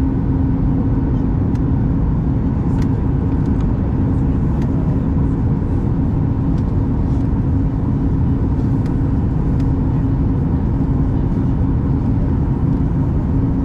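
Steady cabin noise inside a Boeing 737 MAX 8200 on approach: a dense low rumble of airflow and engines with a steady hum, and a few faint ticks.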